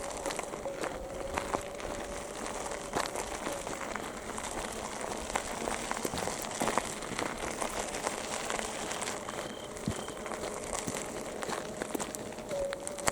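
Footsteps crunching and crackling irregularly on a forest floor of dry leaves and twigs.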